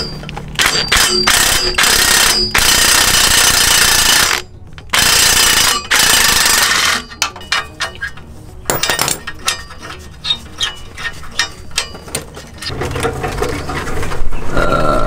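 Power wrench on a long socket extension running in several loud bursts of a second or two as it drives a downpipe bolt, then a ratchet clicking in quick short strokes.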